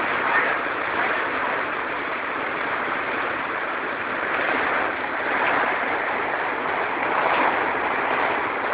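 Heavy downpour: rain pouring steadily onto wet paving, an even, unbroken hiss.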